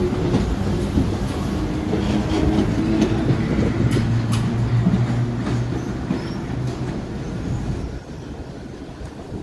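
BMT Standard subway train running on the rails, a steady rumble with a low hum and a couple of sharp clicks about four seconds in, growing quieter over the last two seconds.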